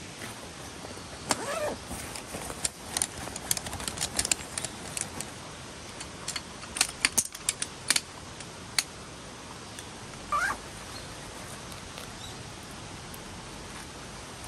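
Steady rushing of a small stream, with a run of light clicks, knocks and clatter for several seconds and two short squeaks, one near the start and one about ten seconds in.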